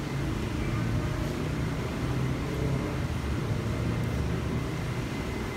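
Steady low background rumble with no distinct single event.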